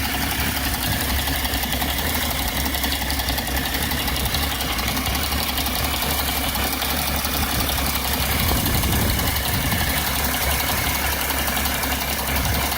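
BMW E60 engine idling, its sound swelling slightly about eight seconds in. The idle is the rough, wandering kind, with RPM varying at random, that appeared after the vacuum pump was replaced.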